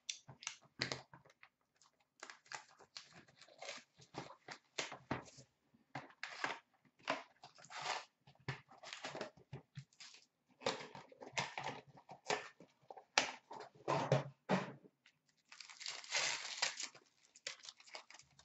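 Hockey card box and foil pack being torn open by hand: irregular crackling and crinkling of the wrapper, with a denser burst of tearing and crinkling near the end.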